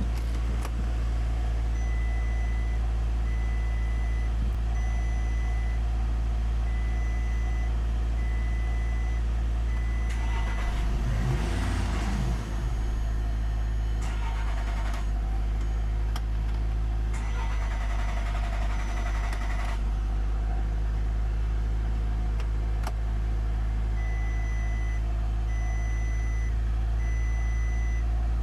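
Audi A3 that won't start: a high electronic warning beep repeating about once a second over a steady low hum. The beep stops after several seconds and returns near the end. A short burst that rises and falls in pitch comes in the middle, followed by a few patches of noise.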